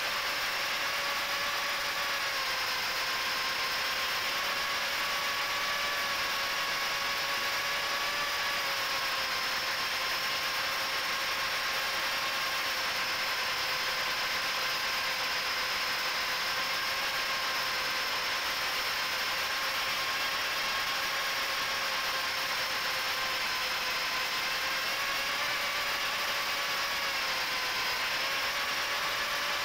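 Brushless motors and propellers of a micro FPV quadcopter (HGLRC 1104 7500kv motors spinning Gemfan 3018 props) whining steadily in flight, heard through the onboard camera's microphone. The whine wavers slightly in pitch with throttle over a steady hiss.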